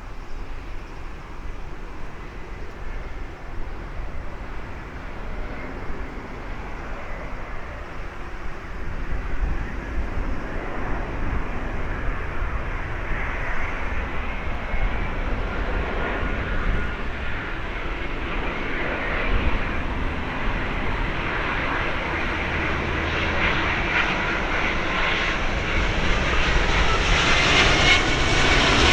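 Jet engines of an Airbus A350-900, Rolls-Royce Trent XWBs, running on approach and growing steadily louder as the airliner comes closer. Near the end a faint whine bends in pitch over the roar.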